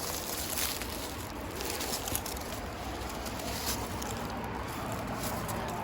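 Wind rumbling on the microphone, with scattered crunches and rustles of footsteps among rocks and brush.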